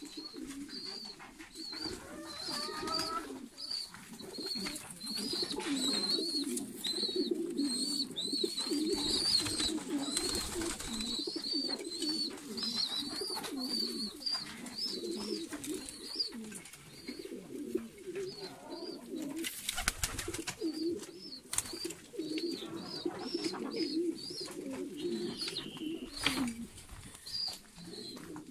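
Domestic pigeons in a coop cooing continuously, several birds overlapping, with a short high chirp repeating over and over above them. A few sharp knocks about twenty seconds in.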